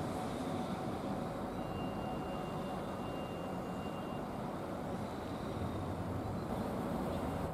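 Steady low rumble of a running machine with a faint constant hum and, for a couple of seconds, a thin high whine.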